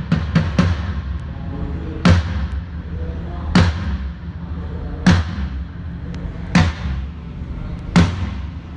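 A drum struck during a sound check: a quick run of a few hits at the start, then single hits evenly about every second and a half, each ringing briefly. A steady low hum runs underneath.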